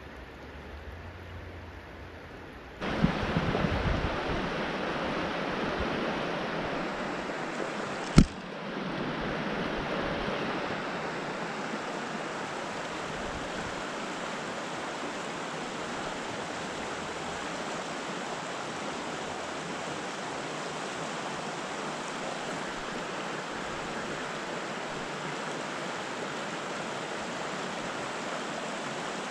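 Rushing water of a rocky trout stream's riffles, faint for the first few seconds, then suddenly loud and close as a steady rush. One sharp knock comes about eight seconds in.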